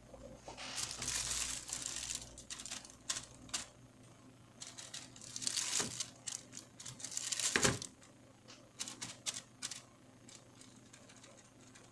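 Irregular crackling and ticking as a laptop graphics card and the flux on its chip heat under a halogen floodlight during reflow. There are three clusters of clicks with short hissy bursts, the loudest about three quarters of the way through, over a faint steady hum.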